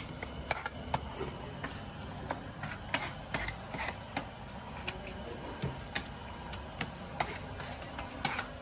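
Irregular sharp clicks and light clatter, about one or two a second, from cast lead battery grids being handled and stacked, over a low steady workshop rumble.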